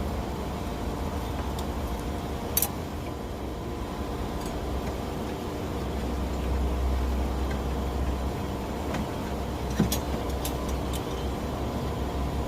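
Steady machine hum with several fixed tones, broken by two sharp clicks, one about two and a half seconds in and one near ten seconds.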